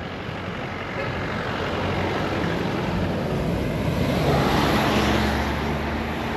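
A motor vehicle with a low engine note drives past on the highway. Its engine and tyre noise grow louder to a peak about four to five seconds in, then ease off.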